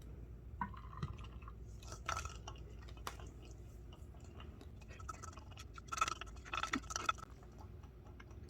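A cat chewing pieces of a chicken stick treat, with scattered small clicks and scrapes. The clicks come in two busier bursts, about two seconds in and again around six to seven seconds in.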